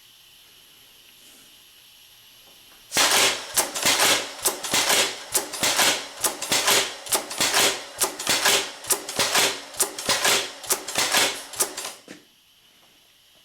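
Tippmann Aerostitch pneumatic leather sewing machine stitching forward through heavy leather: a fast run of sharp, irregular clacks, several a second, that starts about three seconds in and stops about nine seconds later.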